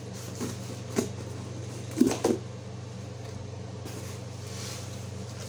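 Cardboard shipping box being opened by hand: a few light knocks, a louder double crackle about two seconds in, then softer rustling of the flaps.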